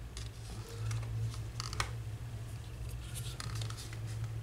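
Light scattered clicks and scrapes of hands handling a plastic laser toner cartridge and its PCR roller, over a steady low hum.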